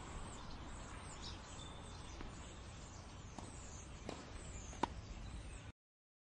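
Faint outdoor background ambience with a few thin high chirps, like distant birds, and a couple of small clicks; it cuts off abruptly to silence near the end.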